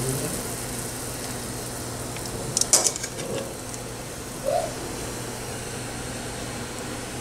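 Cooking at the stove: a steady low hum with a quick cluster of clinks and knocks of utensils on the soup pot a little under three seconds in, and a short rising squeak around four and a half seconds.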